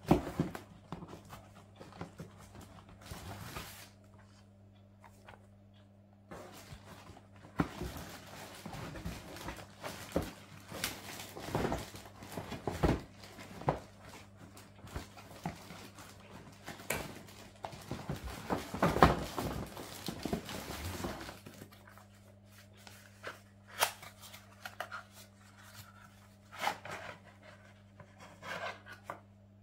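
Plastic bags and cardboard packing rustling and crinkling as parts are lifted out of an aquarium filter's box, with scattered clicks and taps. The rustling is densest in the middle and sparser near the end. A faint steady hum runs underneath.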